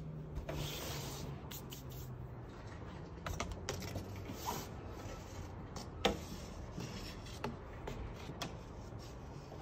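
A window screen's frame rubbing and scraping against the window frame as it is worked loose, with scattered small clicks and one sharper click about six seconds in.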